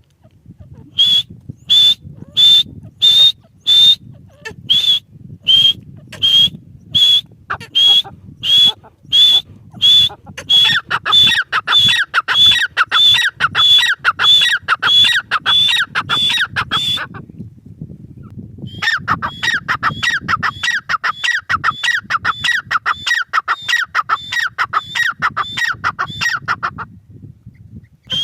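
Grey francolin (teetar) calling: loud, high, shrill notes about one a second, then a faster run of doubled notes several a second that breaks off briefly, resumes and stops near the end. A low, steady hum lies underneath.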